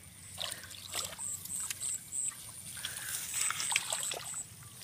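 Hands groping through shallow muddy water, with small irregular splashes and sloshes. A high chirp repeats a few times a second in the background.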